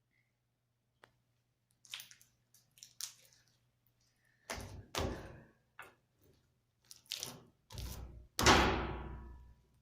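A big lump of mixed slime being handled and slapped down: a series of wet squelches and thuds, a few light ones at first, then heavier ones in the second half, the loudest near the end dying away over about a second.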